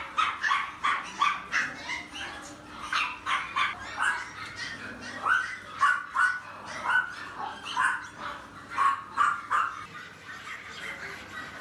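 Many small caged dogs, mostly Chihuahuas and Pomeranians, yapping and barking in quick overlapping short calls, two or three a second, thinning out near the end.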